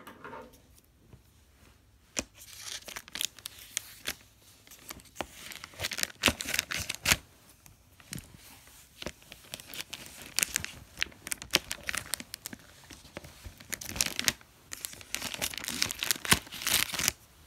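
White plastic mailer wrap on a shipping package being torn open and crumpled by hand: irregular rips and crinkles of plastic that start about two seconds in.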